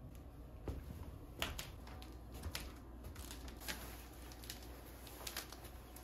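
Faint, scattered taps and rustles of getting dressed: leather ankle boots being pulled on and fitted, then a coat swung on, with the sharpest tap about a second and a half in.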